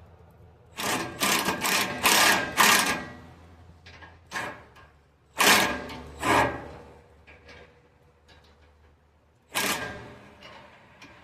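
A handheld power tool run in short bursts: four in quick succession about a second in, then a few single bursts spaced out, and one more near the end.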